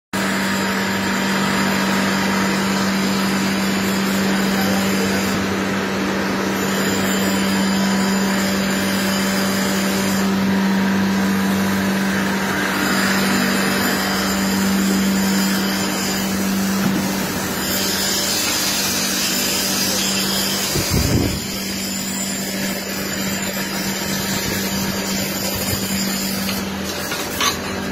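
Steady drone of workshop machinery running: a constant electric-motor hum under an even rushing whir. There is a brief low bump about two-thirds of the way through, after which it is slightly quieter.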